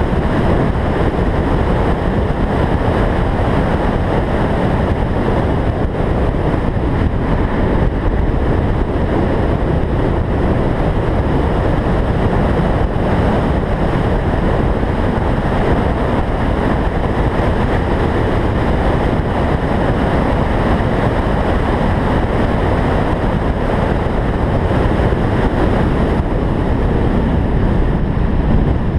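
Steady wind noise buffeting a roof-mounted camera's microphone on a car moving at speed, with the car's running noise blended underneath.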